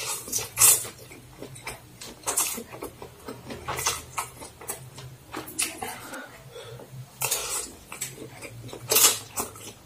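Eating fried egg noodles: noodles slurped and chewed, with a metal spoon and fork scraping and clinking against a ceramic bowl at irregular intervals.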